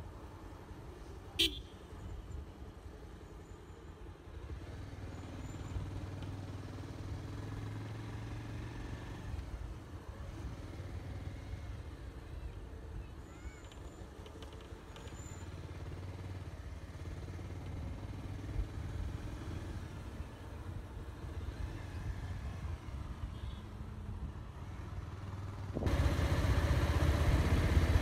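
Motorcycle running at low road speed, a steady low drone. A single sharp click comes about a second and a half in, and the noise suddenly grows much louder about two seconds before the end.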